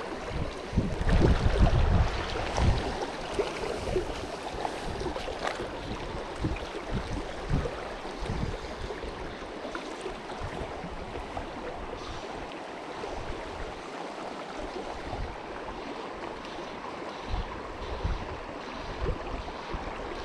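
River water rushing steadily, with low rumbling bumps on the microphone during the first three seconds.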